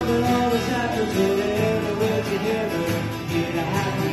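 A man singing a song to strummed acoustic guitars, performed live.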